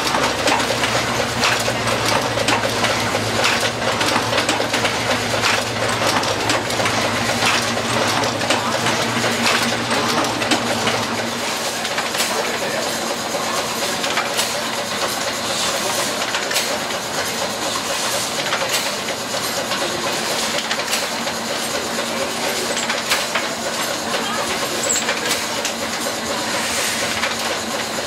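Antique letterpress printing presses running, including an Original Heidelberg platen press, with a steady mechanical clatter of rapid clicks and clacks. A low hum underneath drops out about eleven seconds in.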